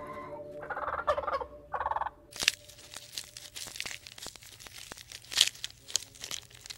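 Wild turkey tom gobbling in two short warbling bursts. About two seconds in, this gives way to a run of crackling and snapping clicks as a giraffe pulls leaves from a tree branch.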